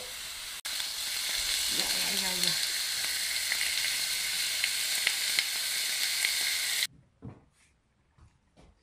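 Slices of wild boar shoulder loin and green onion sizzling in rendered boar fat in a sukiyaki pan, stirred with cooking chopsticks: a steady frying hiss with small crackles. The sizzle cuts off abruptly near the end.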